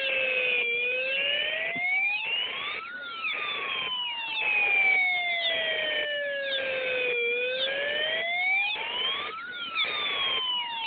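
Electronic siren wailing. Its tone slides slowly down, then climbs back up, in a repeating cycle of about six and a half seconds.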